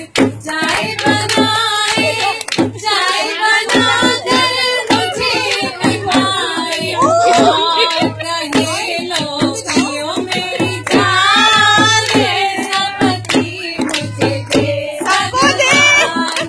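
Woman singing a Hindi ladies' sangeet song into a microphone, her voice amplified, over a steady percussive beat.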